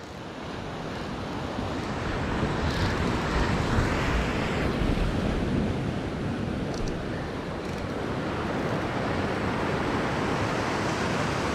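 Sea surf washing against a lava-rock shoreline, mixed with wind on the microphone; the wash swells a few seconds in, then settles to a steady rush.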